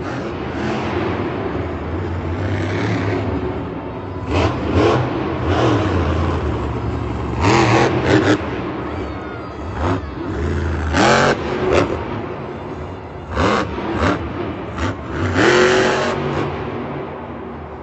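Monster truck's supercharged V8 engine running hard, revving in repeated rising surges every few seconds.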